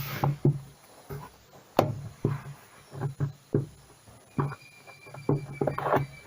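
Irregular sharp clicks and knocks of washing machine parts being handled and fitted onto the shaft during reassembly.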